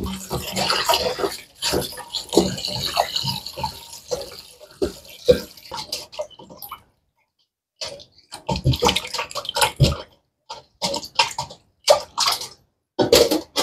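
Tap water running into a stainless steel bowl while hands rub raw chicken breasts in it. After a short silence about halfway, water splashing and sloshing in the bowl in quick bursts as the meat is rinsed by hand.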